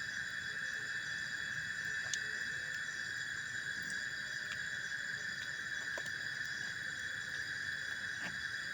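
Steady chorus of night insects: several shrill, unbroken tones layered together, with a few faint clicks now and then.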